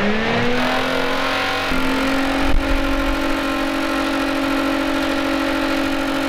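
Electric cooling fan running: its motor whine rises in pitch over the first half second as it spins up, then holds a steady whine with a slight step up about two seconds in.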